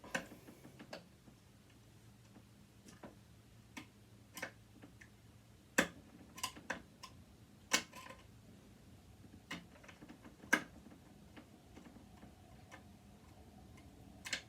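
Irregular sharp clicks and taps of a screwdriver and tool on a sewing machine's plastic and metal housing while a screw is worked loose, about a dozen spread unevenly through the stretch.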